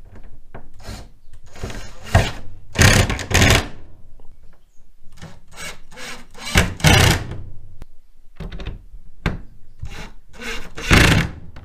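Makita cordless impact driver driving the bolts of a sunroof's compression clamp frame into place, in a series of short bursts with brief pauses between them. The loudest bursts come about three seconds in, about seven seconds in and near the end.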